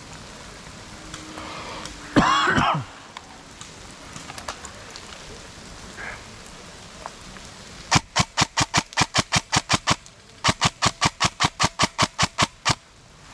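Two long bursts of rapid airsoft fire, about eight shots a second, in the later part. A single loud cough about two seconds in. Rain patters steadily underneath.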